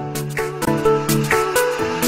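Background music: a melody of pitched notes over a steady beat of about two hits a second.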